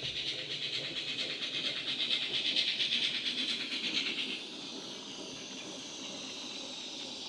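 Model J70 steam tram locomotive's DCC sound decoder (Wheeltappers sound file) playing steam chuffs through the loco's small speaker, in a quick regular beat. About four seconds in the chuffing gives way to a softer steady hiss.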